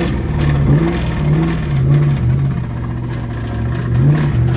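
Ford Mustang SN95's 4.6-litre two-valve V8 being blipped a few times, dropping back to a steady idle between blips, with one more short rev near the end.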